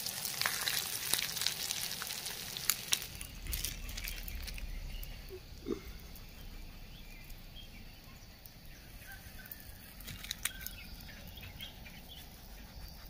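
Masala-coated fish shallow-frying in coconut oil in a pan, sizzling with scattered crackles. It is loudest in the first few seconds, then settles to a softer sizzle. Faint bird chirps come through later.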